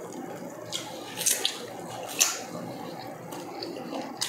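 Close-miked eating of roast chicken by hand: wet chewing and lip-smacking, with a few short, sharp crackles of meat and crisp skin being torn.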